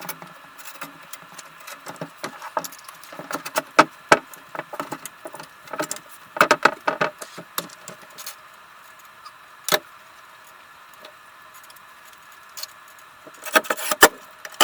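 Irregular clicks, knocks and light rattles of objects being handled, bunched in a flurry about six and a half seconds in and again near the end, over a faint steady hum.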